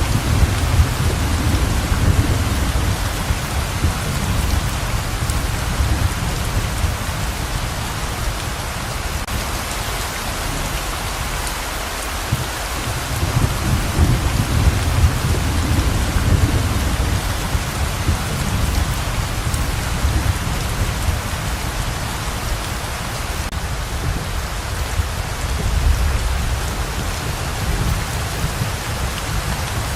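Heavy rain pouring steadily, with low rumbles of thunder swelling and fading a few times: at the start, around the middle and near the end.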